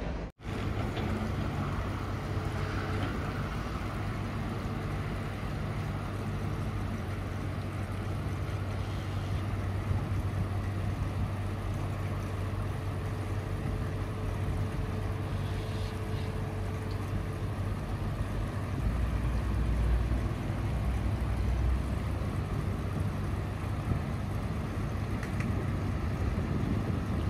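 An engine running steadily, a low even hum, over a constant rushing noise.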